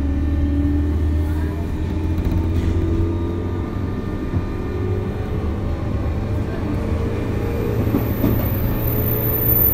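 JR West 201 series electric train running between stations, heard from inside a passenger car: a steady low rumble with a motor whine that rises slightly in pitch in the first few seconds.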